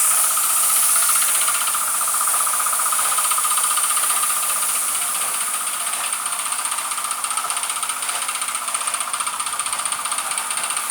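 Compressed-air paint spray gun hissing steadily, with a motor running underneath in a fast, even pulse. The hiss eases slightly about halfway through.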